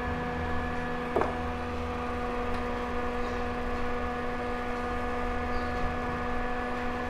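Small electric desk fan running steadily: a whirring motor hum with a steady tone. A brief click about a second in.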